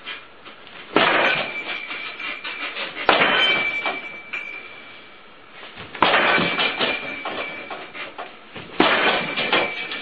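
Four loud crashes, each starting suddenly and dying away over a second or two with a clattering ring.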